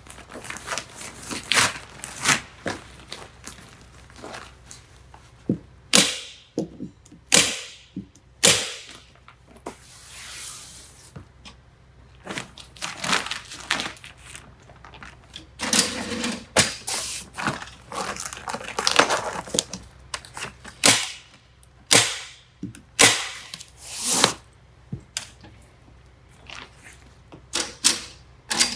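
Staple gun firing staples through an Intello Plus airtight membrane into timber studs, sharp clacks at irregular intervals, mixed with the crinkling and rustling of the membrane sheet as it is lifted and smoothed against the wall.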